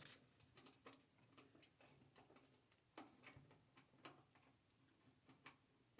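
Very quiet, faint irregular ticks and clicks of a screwdriver turning screws out of an old TV's cabinet.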